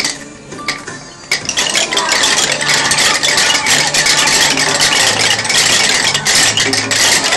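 A group of children beating wooden rhythm sticks, a dense continuous clatter of many sticks at once that starts suddenly about a second in.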